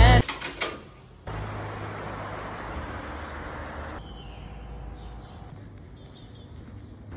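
Steady outdoor street ambience, an even background hiss that changes abruptly about a second in and again about four seconds in, with a low hum under the quieter later part.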